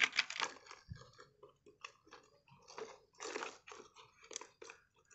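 Plastic toy truck parts being handled and fitted together: irregular light clicks, knocks and crunchy scraping of plastic on sand.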